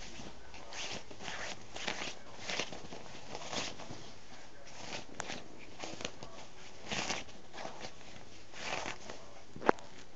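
Irregular scratchy rustling and scraping of a bedspread as a small pet scrambles about on it, with one sharp click near the end.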